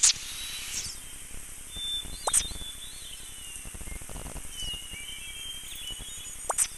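Outdoor nature ambience of birds chirping over a steady high hiss, with three sharp whistle-like sweeps: one at the start, one a little past two seconds in, and one near the end.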